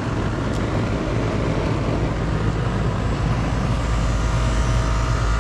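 1994 Janitrol 2-ton central air conditioner's outdoor unit running steadily: the condenser fan's rush of air over a low hum from its reciprocating compressor. The low hum grows a little louder about three and a half seconds in.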